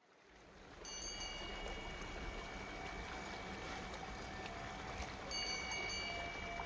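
Chimes ringing twice, about four and a half seconds apart, each leaving clear high tones that ring on. Underneath is a steady rushing background that fades in at the start.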